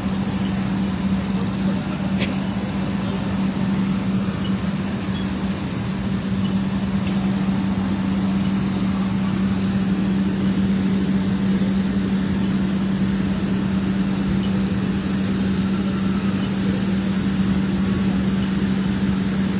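A fire engine's motor running steadily at the fire scene, heard as a constant low hum that holds one pitch throughout.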